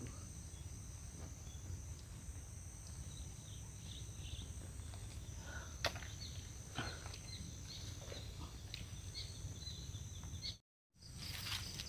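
Steady insect drone at two high pitches over a low rumble, with a few faint clicks and knocks; the sound cuts out for a moment near the end.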